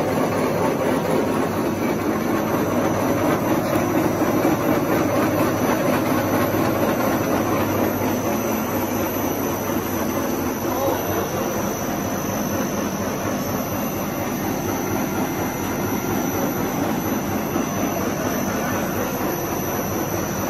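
CY70-II twin-screw puffed-snack extrusion line running: a steady mechanical din of motors and conveyors, with a thin high whine over it.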